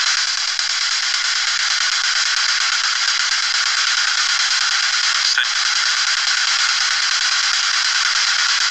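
Ghost box radio giving out steady static, with a short click a little over halfway through.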